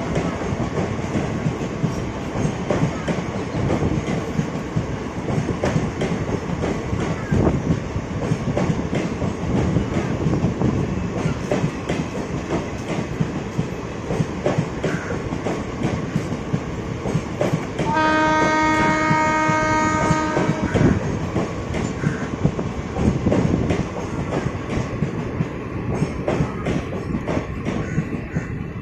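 Express passenger train running at speed: a steady rumble with irregular wheel clicks and knocks over the rails. About eighteen seconds in, the WAP-7 electric locomotive's horn sounds one steady chord for about three seconds.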